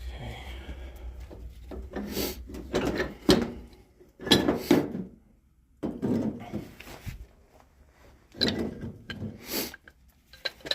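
Objects being handled and shifted about, heard as irregular clatter, knocks and rubbing in several bursts, with a quiet pause about halfway through.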